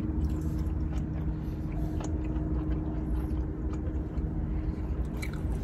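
Steady low hum of a car cabin, with faint chewing and small clicks of someone eating pizza.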